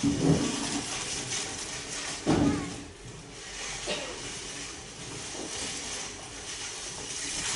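Children's footsteps and shuffling on a stage as they walk into place, with two dull thuds, one at the start and one about two seconds in, over a steady hiss of hall noise.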